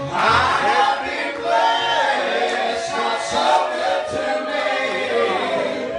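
A gospel song sung by several voices together in harmony, over held low bass notes.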